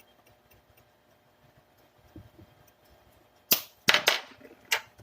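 Near quiet, then about three and a half seconds in a quick run of four or five sharp clicks and knocks of kitchen utensils as a spice is measured into a marinade bowl.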